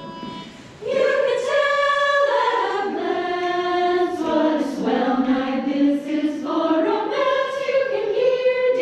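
A choir singing, several voices holding sustained notes together, quiet at first and then coming in loudly about a second in.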